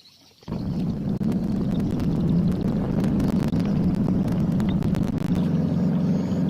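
Small boat engine running steadily with a low, even hum, cutting in abruptly about half a second in.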